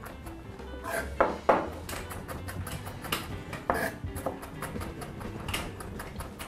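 Chef's knife mincing shallot on a cutting board: a quick, irregular run of blade knocks on the board.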